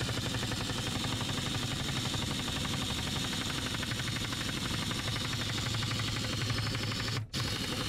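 Husky pneumatic impact wrench with a 10 mm socket running on a door-handle bolt in a car door, a continuous rapid hammering rattle. It cuts out briefly about seven seconds in, then starts again.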